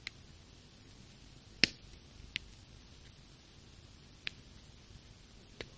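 Four separate sharp clicks from a Swiss army knife being handled as a tool is pried out of it, the loudest about a second and a half in.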